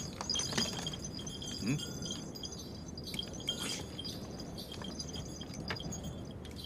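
Faint, scattered clinks and rattles of belongings being rummaged through and sorted, over a soft high chiming.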